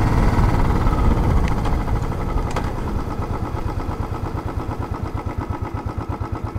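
Motorcycle engine running as the bike slows down. Its exhaust settles into an even, rapid thudding that gets quieter.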